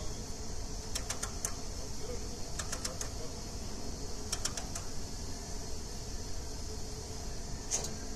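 Band sawmill blade tensioning mechanism being tightened, clicking in short quick runs of three to five clicks every second or two, with a single click near the end, over a steady low hum.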